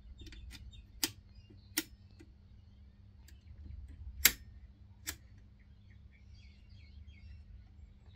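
A low steady electrical hum with four sharp clicks over it, the loudest about four seconds in. Faint high chirps come near the end.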